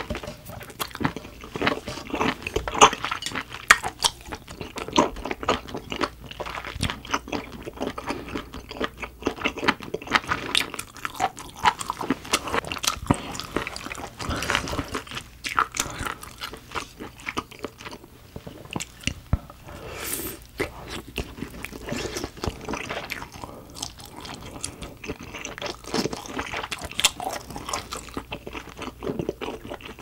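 Close-miked chewing of a mouthful of steamed shellfish: wet mouth sounds with many small clicks and crunches, easing off briefly a few times.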